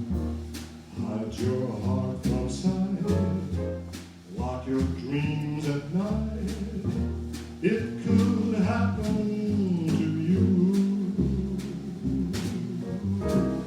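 Small jazz band playing an instrumental passage, with a melody line over bass notes and drum and cymbal strokes.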